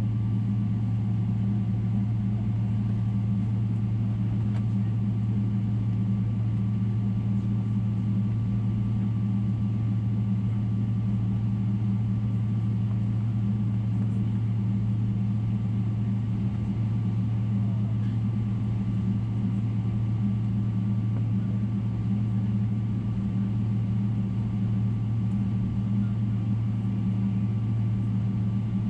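Steady cabin noise inside a Boeing 777-300ER: a constant low drone with a faint, even whine above it and no change in pitch or level.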